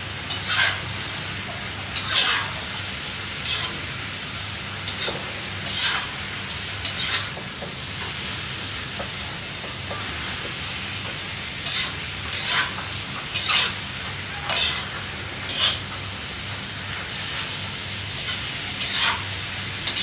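A metal spatula scraping and tossing food in a wok during stir-frying, one scrape every second or two, over a steady sizzle of frying food and a faint low hum.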